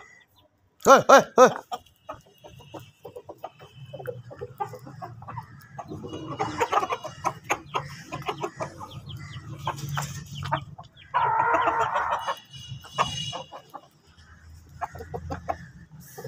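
Aseel chickens clucking in short, rapid series, with two louder drawn-out calls, one about a second in and another about eleven seconds in.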